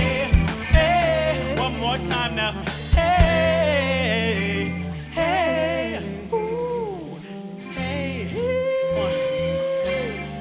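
Live band of vocals, electric guitar, saxophone, bass and drums playing a pop-gospel-jazz song, with singing over the drums and bass. The band thins out in the second half and the song ends on a long held note near the end.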